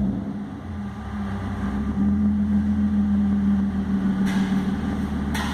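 BMW E36 325i's 2.5-litre straight-six idling through its exhaust, settling into a low, steady idle over the first couple of seconds. Two faint clicks near the end.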